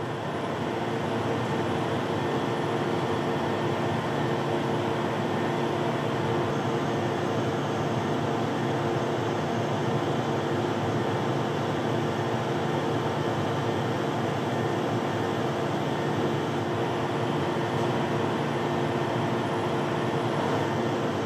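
Combine harvester running steadily with a constant hum, its hydraulics folding the Geringhoff Harvest Star grain table.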